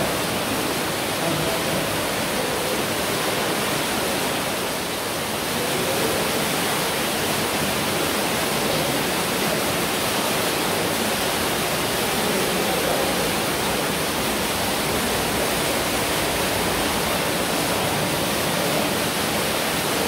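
Underground waterfall plunging into a pool, a steady rushing of falling water.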